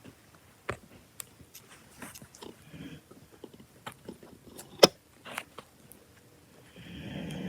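A sleeping dog snoring: a faint snoring breath about two and a half seconds in and a louder one near the end, with scattered soft mouth clicks and smacks between them and one sharp click just before the five-second mark.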